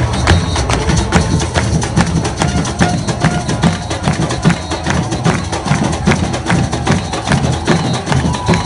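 Carnival batucada drum section playing a fast, driving samba rhythm: deep bass-drum pulses under dense, sharp stick strokes on snare-type drums.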